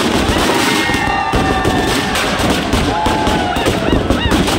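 Firecrackers packed inside a burning Ravana effigy going off in a dense, rapid crackle of bangs. High whistling tones rise and fall over the crackle.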